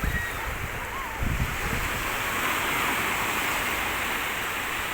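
Sea surf washing on the shore, swelling through the middle, with wind rumbling on the microphone.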